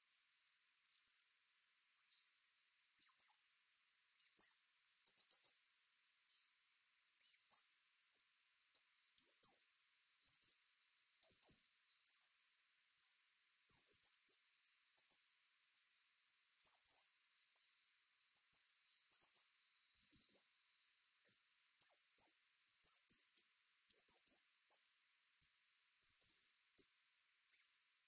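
Coal tit calls: a long string of short, high-pitched squeaks and thin notes, one to three a second, some rising and some falling in pitch.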